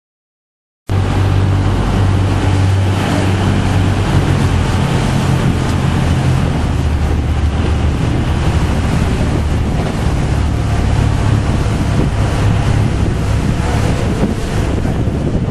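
Motorboat engine running steadily under way, with wind buffeting the microphone and water rushing past the hull. It cuts in suddenly about a second in.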